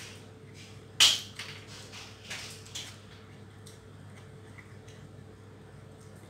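Eating sounds at a table: one sharp click about a second in, then a few softer clicks and smacks, over a steady low hum.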